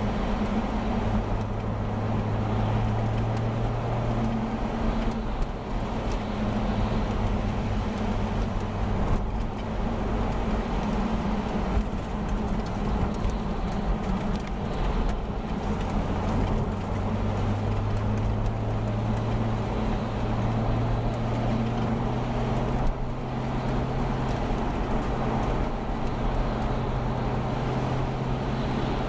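Car engine and tyre noise heard from inside the car while driving on a wet road. The engine hum is steady, its pitch shifting up and down a few times as the car speeds up and slows.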